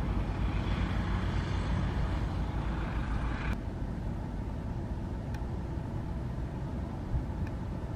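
Heavy construction machinery engine running with a steady low rumble; a higher hiss over it cuts off suddenly about three and a half seconds in.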